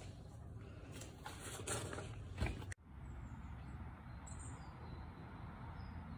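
Steady outdoor background noise with a few light knocks in the first half. It cuts off abruptly about three seconds in, then carries on as a similar steady hum with a few faint bird chirps.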